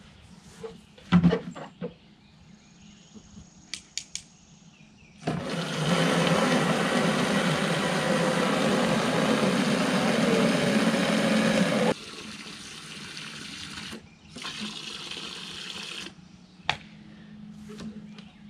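Water from a garden hose pouring into a plastic watering can: a loud rush for about six seconds that drops to a quieter rush as the can fills, stopping about four seconds later. A few sharp knocks about a second in.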